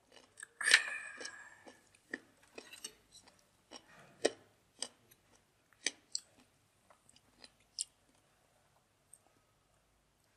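Someone chewing crunchy boiled pig offal, heard as scattered small crunches and clicks that thin out and stop near the end. A sharper knock with a brief ring comes about a second in.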